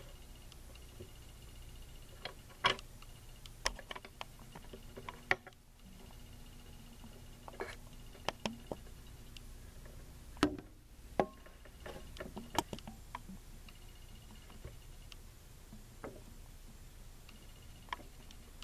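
Scattered light clicks and knocks, irregular and a few seconds apart, over a faint steady hum.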